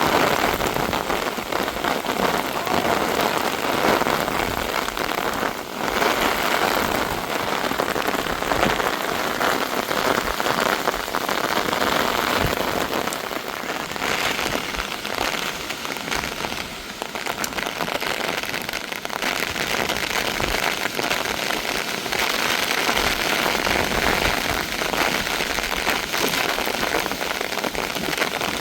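Heavy rain falling steadily, a dense hiss of drops striking surfaces.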